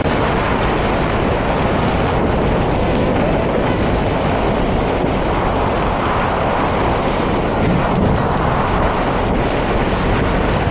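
Steady wind rush over a camera microphone mounted outside a moving pickup, mixed with the truck's tyres rolling on a rough dirt road.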